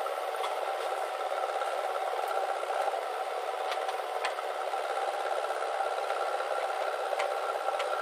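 JCB 3DX backhoe loader's diesel engine running steadily while it loads soil, with several sharp clicks and clinks scattered through.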